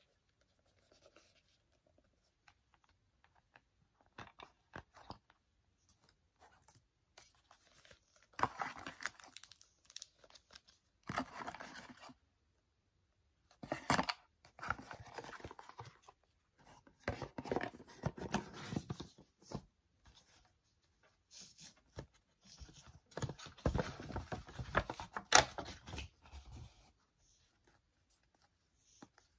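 Paper packaging and tissue paper being handled: several bursts of rustling and crinkling, with a few faint taps before the rustling starts.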